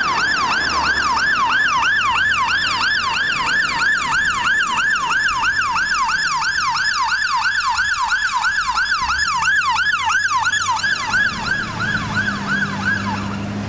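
Fire engine's electronic siren on a fast yelp, its pitch sweeping up and down about three times a second. Near the end the siren stops and the truck's diesel engine is heard as it passes close by.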